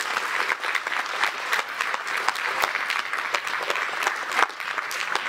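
Audience applauding: many hands clapping together at an even level.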